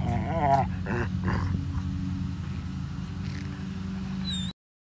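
Chocolate Labrador howling with a wavering pitch, one short howl just after the start and fainter calls after it, over a steady low hum. The sound cuts off suddenly near the end.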